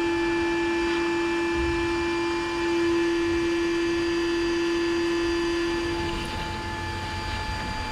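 Bee vacuum motor running with a steady whine, a little quieter in the last couple of seconds.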